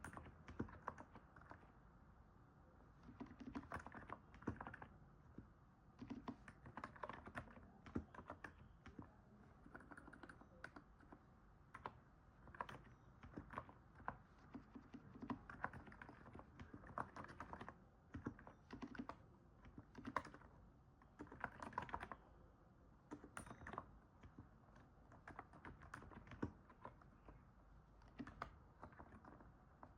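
Typing on a NIZ 68 Pro electro-capacitive keyboard: soft, quiet keystrokes likened to the crunch of stepping on snow, coming in quick bursts with short pauses between them.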